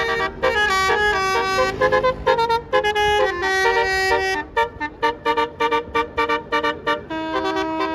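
Bus's Basuri telolet horn playing a melody: held multi-tone horn notes that change pitch, breaking into short, rapid toots from about halfway through, then a held chord near the end.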